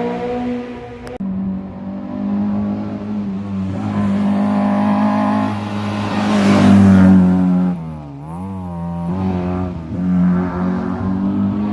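Rally car engines at high revs on a special stage: one engine note breaks off abruptly about a second in and another car takes over, accelerating and passing close about six to seven seconds in, after which its revs dip and waver up and down before climbing again.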